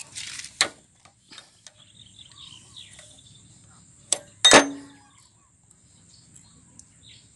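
Light metal clicks of a wrench working the fuel-line fittings on a diesel engine, with one loud ringing metallic clang about four and a half seconds in.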